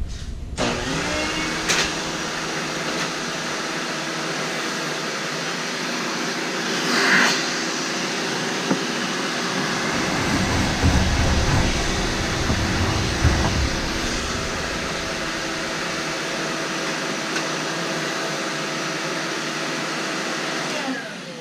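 Vacuum cleaner sucking fiberglass drilling dust out of a freshly drilled rivet hole in a rocket body tube. It starts with a rising whine about half a second in, runs steadily, rumbles lower for a few seconds midway, and winds down just before the end.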